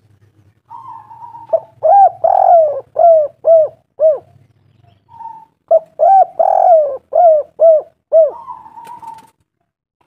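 Spotted dove cooing: two song phrases about four seconds apart, each a held opening note followed by a run of five or six short coos that rise and fall in pitch.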